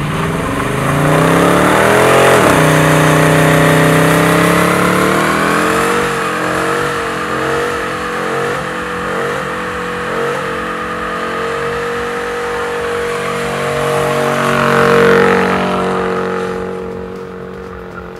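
Dodge Challenger's engine revving hard through a burnout: the pitch climbs over the first couple of seconds, then holds high with a wavering, bouncing note, with tyre squeal and hiss over it. It fades out near the end.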